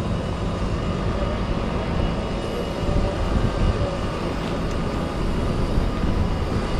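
McCormick X7.624 tractor's 6.7-litre six-cylinder diesel engine running steadily while its hydraulic linkage raises the mounted reversible plough, getting a little louder from about three seconds in.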